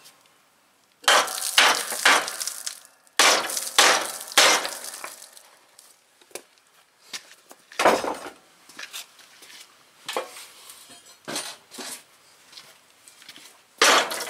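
Claw hammer striking the steel wheel bracket of a riding-mower deck, about a dozen uneven metal-on-metal blows that each ring briefly, the hardest in the first few seconds and again near the end. It is the hammering used to bend the bracket back straight after it was bent down by hitting roots.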